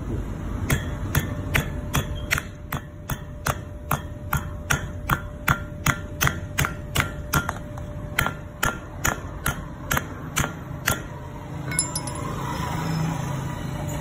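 Hand hammer striking a steel knuckle nail plate laid on a wooden block, driving its teeth into the wood: a steady run of metallic blows, each with a short ring, about three a second. There is a brief pause about halfway, and the hammering stops about three seconds before the end, followed by a few light clicks.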